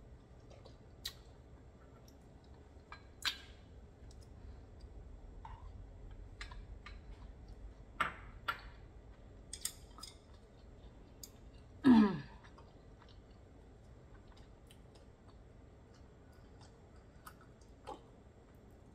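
Eating sounds of raw oysters being chewed: scattered short, wet mouth clicks and smacks, with one louder mouth sound that drops in pitch about twelve seconds in.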